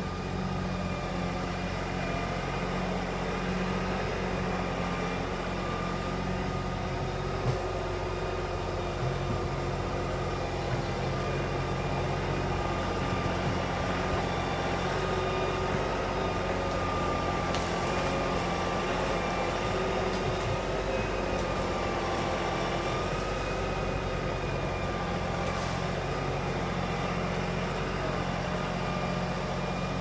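LS XR3135 compact tractor's diesel engine running steadily while the front loader grades dirt, with a sharp knock about seven seconds in.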